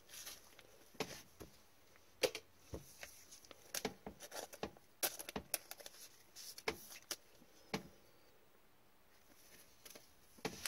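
Hockey trading cards being flipped and shuffled by gloved hands: faint, scattered clicks and flicks of card stock, then a quiet gap of about two seconds near the end.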